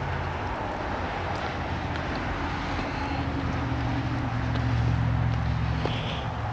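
Road traffic rumble, with a vehicle's low drone growing louder about four seconds in and easing off near the end.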